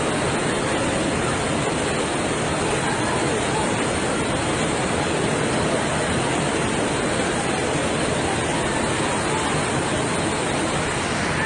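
Floodwater in a swollen river rushing past in a steady, unbroken roar.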